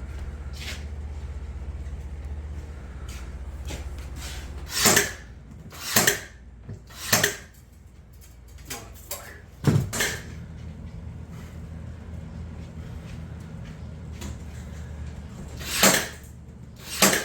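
Irregular sharp knocks and clacks of parts and tools being handled while a ceiling fan is installed, about six in all, over a low steady hum that stops about four seconds in and comes back near the ten-second mark.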